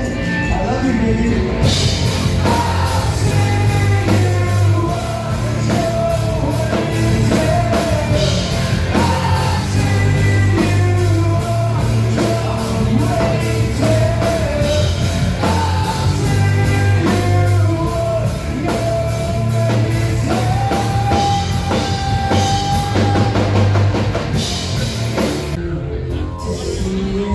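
Rock music with a singer over a drum kit and bass.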